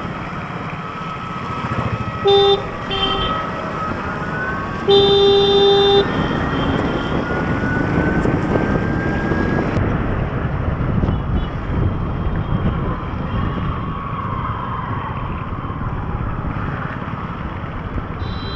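Vehicle horn beeping in traffic: two short beeps about two seconds in, then a longer beep of about a second, over the steady hiss of wind and tyres on a wet road.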